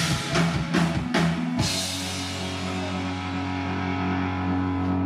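Live rock band with drum kit, electric guitars and bass: a last few drum and cymbal hits, then about a second and a half in the drums stop and a held chord rings out until it is cut off near the end, closing the song.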